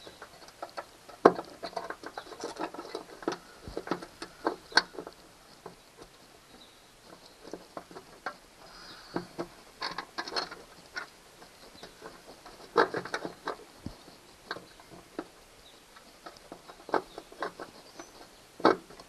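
Irregular clicks, taps and light scraping of a steel bracket and its bolts being worked against a truck bed under a rubber bed mat, as the bolts are fitted down into holes in the bed.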